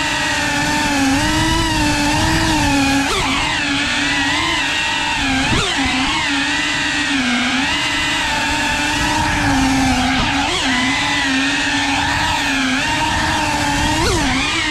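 FPV quadcopter's motors and propellers whining steadily. The pitch wavers up and down with throttle, with a few quick swoops up and back.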